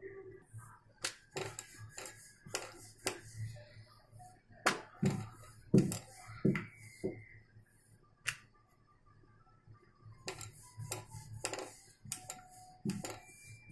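Rolling pin knocking and clicking against the board as a ball of samosa dough is rolled out, in irregular clicks that come in quick runs, with a short lull past the middle.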